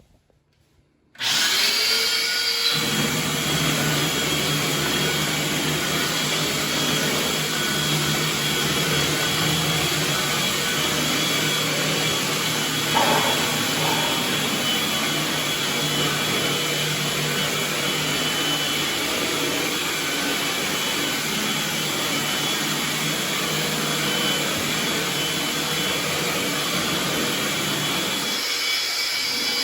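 Texture spraying rig running: a steady motor drone with a hiss of air as knockdown texture is sprayed onto a drywall patch. It starts suddenly about a second in.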